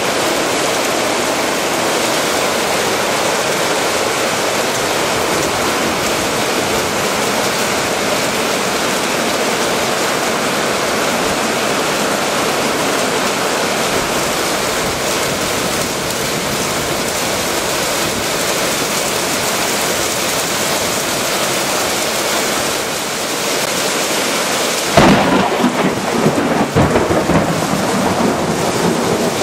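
Heavy rain pouring down in a thunderstorm, a steady loud hiss of rain on flooded ground. About 25 seconds in, a sudden louder, uneven rumbling breaks in and carries on to the end.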